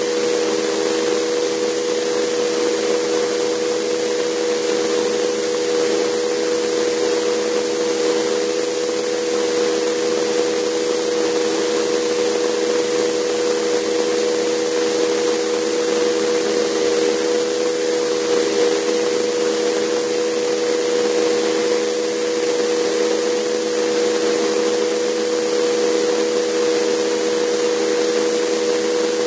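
JetCat PTH-2 kerosene turboshaft turbine of a Vario Alouette II scale RC helicopter running steadily in flight, heard from an onboard camera: a loud rushing hiss with a steady hum of several close tones.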